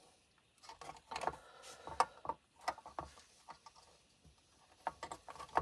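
Irregular light clicks and taps of small hand tools working on a circuit board, bunched together in a few quick runs.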